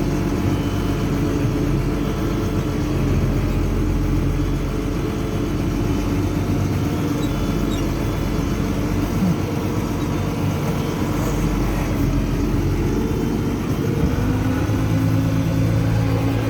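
Farm tractor engine running steadily while towing a hay baler, its note changing about 14 seconds in as the engine speed shifts.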